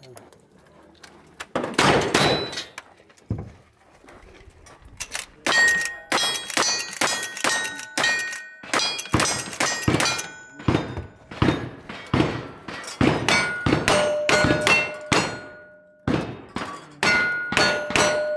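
One gunshot about two seconds in, then a fast string of about twenty shots, roughly two a second, from a lever-action rifle and then a revolver. Most shots are followed by the clang and ring of a struck steel target.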